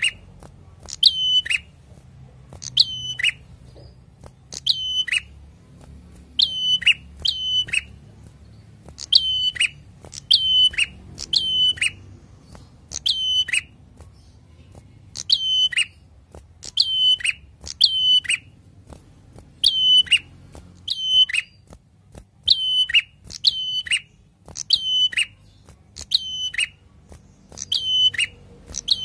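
Caged ashy tailorbird singing: loud, sharp notes repeated about once a second, some single and some in quick pairs, each sliding down in pitch.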